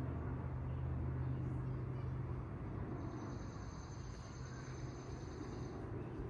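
Aircraft passing overhead out of sight, a steady engine rumble that slowly fades after the first couple of seconds. A faint, steady high whine sounds for about three seconds in the middle.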